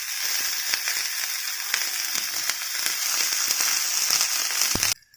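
Karpuravalli (Indian borage) leaves and the other chutney ingredients frying in hot oil in a pan: a steady sizzle with many small crackles. The sizzle cuts off suddenly near the end.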